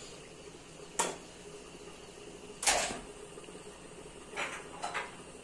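A few kitchen handling noises from a knife and a plastic cutting board being moved and set down: a sharp click about a second in, a louder knock near the middle, and two softer scrapes near the end, over quiet room tone.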